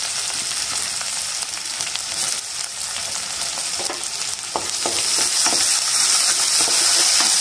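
Sliced onion, green chillies and curry leaves sizzling in hot oil in a kadai, stirred with a spatula that knocks and scrapes against the pan. The sizzle gets a little louder about halfway through, when the knocks come.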